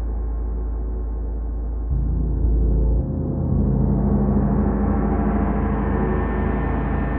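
40-inch Wuhan feng gong droning with a dense wash of overtones, swelling louder about two seconds in and growing brighter from about four seconds in.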